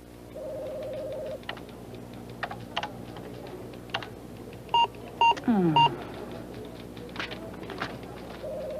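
Keystrokes on a computer keyboard with electronic computer beeps: a steady beep of about a second near the start, three sharp loud beeps about five seconds in, then a falling tone. These are the sounds of a user struggling with a balky computer.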